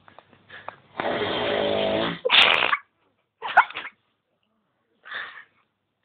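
A man snoring loudly: one long buzzing snore of about a second, then a sharp breathy burst. A couple of short breathy bursts follow, about a second apart.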